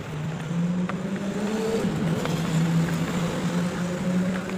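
A motor vehicle's engine running nearby with a steady low hum, amid street traffic.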